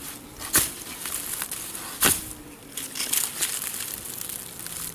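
Shovel blade chopping into the soil and roots around a shrub: two sharp strikes about a second and a half apart, with crunching and crackling of dirt and roots between.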